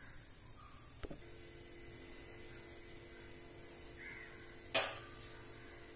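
A crow caws once, short and harsh, about three-quarters of the way through, over a faint steady hum; a small click sounds about a second in.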